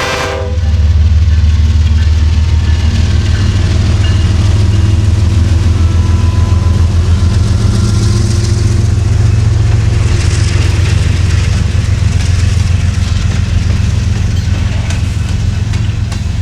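Diesel locomotives of a BNSF empty coal train passing close by: a loud, steady, pulsing low engine rumble that comes up just as the horn cuts off at the very start.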